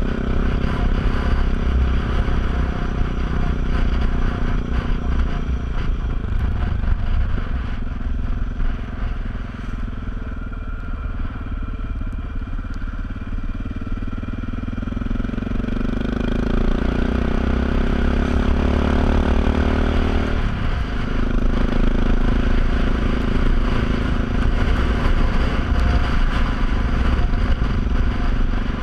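Motorcycle engine heard from on board while riding: it eases off and goes quieter for a few seconds about eight seconds in, then revs up with rising pitch and drops back suddenly at a gear change about twenty seconds in, running steadily after that.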